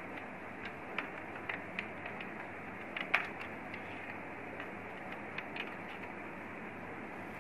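Light clicks and taps of a small glass lens being handled and set into a projector's plastic optics housing, with one sharper click about three seconds in, over a steady background hiss.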